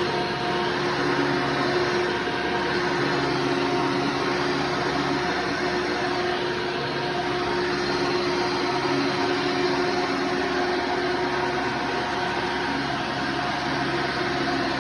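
Hoover Runabout Deluxe vacuum cleaner running at steady speed: a constant motor whine with rushing airflow.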